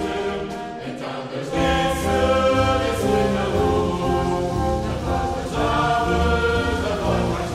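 Background music of held, sustained notes over a low bass; the bass drops out briefly and comes back in about a second and a half in.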